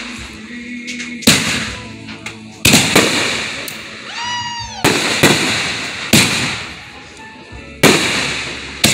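Aerial fireworks bursting overhead: a rapid string of sharp bangs, roughly one to two a second, each trailing off into crackle. About four seconds in, a short high tone rises and falls.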